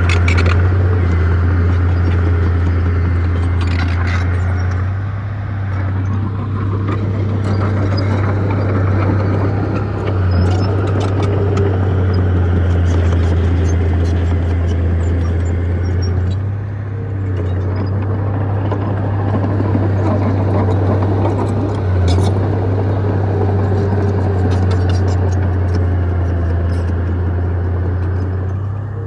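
Bulldozer's diesel engine running steadily under load, a loud low hum, with scattered metallic clinks and clanks.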